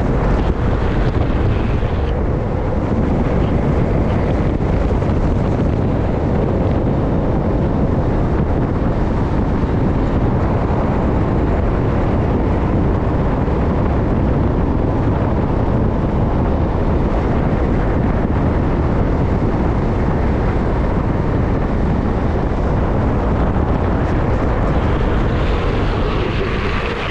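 Wind rushing over the microphone of a downhill skateboarder at racing speed, mixed with the steady roll of urethane wheels on rough asphalt. The noise turns brighter and hissier near the end.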